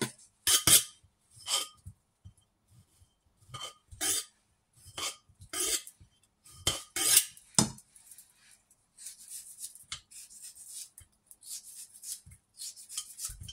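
Sharp clinks and knocks of a knife cutting cherry tomato and lime pieces over a clay mortar, about ten spaced strikes in the first eight seconds, then softer, quicker scraping and tapping.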